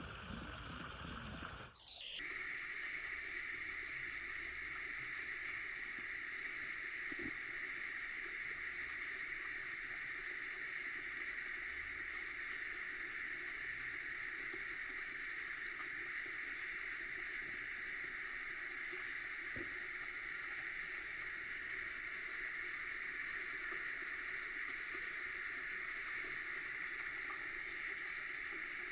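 Steady outdoor background noise, a constant hiss centred in the middle-upper pitches, after a louder, brighter rush of noise in the first two seconds.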